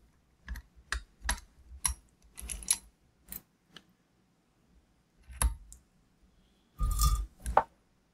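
A run of sharp clicks and knocks from a small bench vise and a battery cell being handled as the cell is set in the jaws and clamped. A louder metallic clatter with a brief ring comes about seven seconds in, as the soldering iron is taken up.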